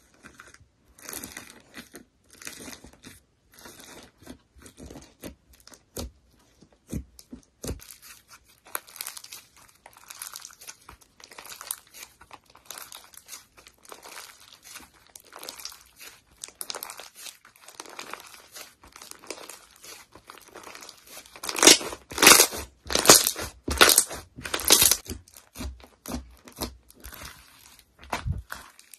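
White slime mixed with small foam beads being poked, squeezed and stretched by hand, giving irregular crackling and crunching, with a run of louder crackles about three quarters of the way through.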